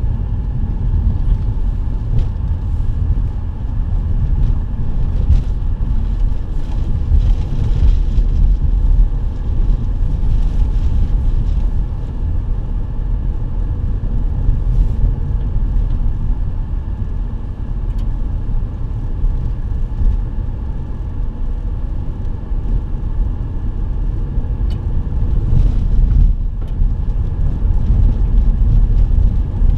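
Vehicle driving on a dirt road, heard from inside the cabin: a steady low rumble of engine and tyres on gravel, with a few faint clicks.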